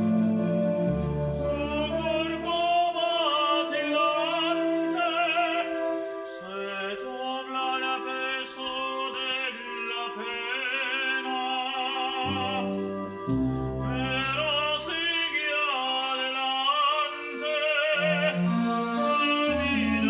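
Operatic solo singing with wide vibrato over sustained instrumental accompaniment, the voice swelling on long held notes.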